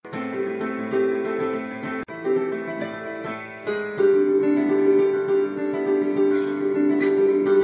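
Digital piano being played: a tune of long held notes.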